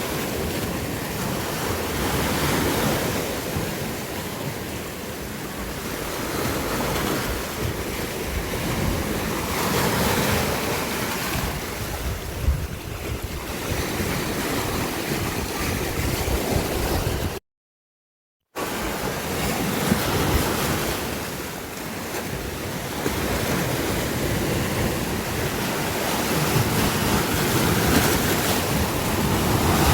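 Sea waves breaking and washing on the shore, a continuous surf hiss that swells and falls back every few seconds. The sound cuts out completely for about a second a little past the middle.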